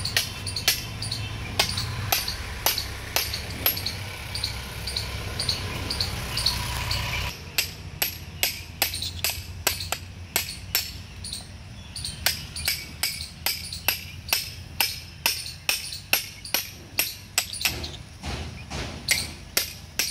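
Hand hammer tapping repeatedly on a metal horn-shaping tool fitted against a buffalo's horn: sharp metallic knocks, uneven at first, then settling into a steady beat of about two to three blows a second. A low rumble under the first part stops suddenly about seven seconds in.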